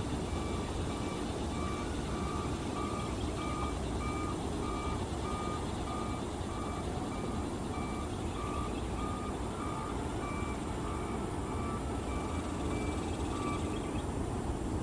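Steady repeated electronic beeping, about one and a half beeps a second, that stops shortly before the end, over a steady low rumble.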